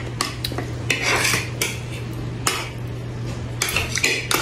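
Metal cutlery clinking and scraping on a ceramic plate while eating rice, a scatter of light clicks with a few short scrapes.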